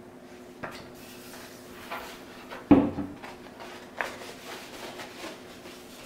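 Handling sounds as a large paper poster is moved about on a wooden cabinet: a few separate light knocks with rustling between them, the loudest knock about three seconds in, over a faint steady hum.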